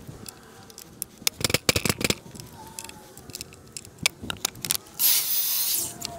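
Hard clicks and knocks from handling the parts of a miter saw's fence and table: a quick cluster about one and a half seconds in, more around four seconds. Near the end comes about a second of scraping hiss as a board slides across the saw table.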